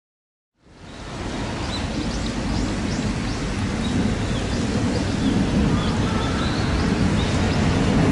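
Steady outdoor noise of rain and wind, fading in from silence about half a second in.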